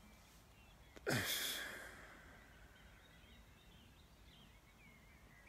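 A man's heavy sigh about a second in: a sharp breath out with a falling voiced tone, fading over about a second.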